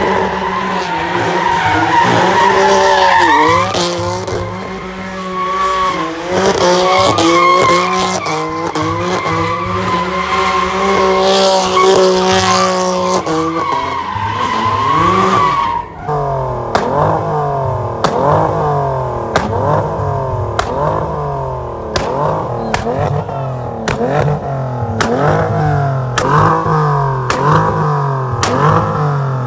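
A car drifting, its engine revving hard while the tyres squeal. From about halfway the revs rise and fall over and over in quick succession, with sharp pops in between.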